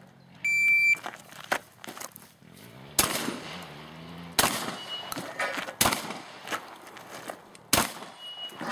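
A shot-timer start beep, then four shotgun shots about one and a half to two seconds apart, with lighter clicks and knocks between them, as a shooter fires a practical shotgun stage.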